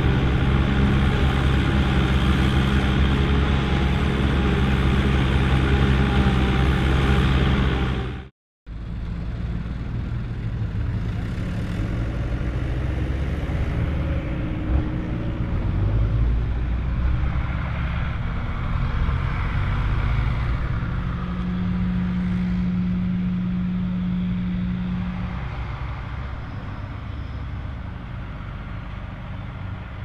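Ford 5000 tractor and a PTO-driven one-row forage harvester running steadily under load while chopping corn, with a second tractor alongside. The sound cuts out briefly about eight seconds in. After that a tractor engine runs at a steady, lower level, and a steady hum stands out for a few seconds past the middle.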